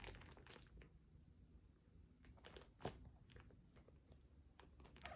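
Faint, scattered clicks and small crunches of a cat chewing on something it has caught, with one sharper click about three seconds in.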